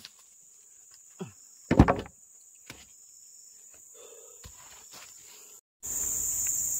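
Insects trilling steadily, with a few sharp knocks; the loudest, about two seconds in, is a double knock. Near the end the sound cuts briefly and a louder insect chorus takes over.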